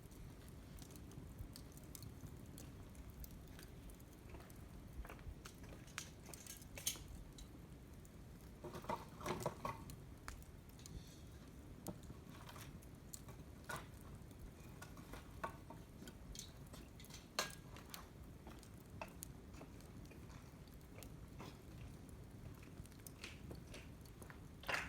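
Wood fire burning: a low, steady rumble of flame with scattered sharp crackles and pops, including a short burst of snapping about nine seconds in.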